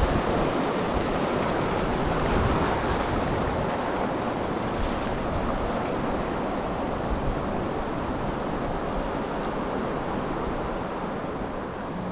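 Rushing water of river rapids mixed with wind buffeting the microphone: a steady roar that slowly grows fainter.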